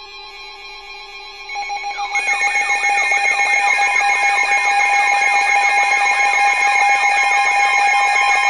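Emergency alert attention signal: a loud electronic alarm tone comes in about one and a half to two seconds in and holds steady, with a fast repeating warble over it, sounding ahead of a severe thunderstorm warning broadcast.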